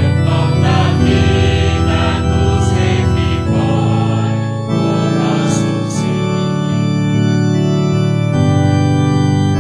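Organ playing slow, sustained chords that change every second or two, as church music during the Mass.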